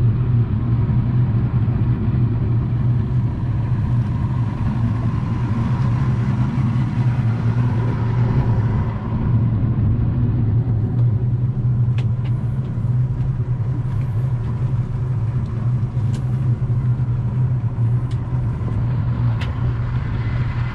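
Outboard engines of an Intrepid 323 center-console boat running at steady speed, a continuous low drone with a few faint clicks in the second half.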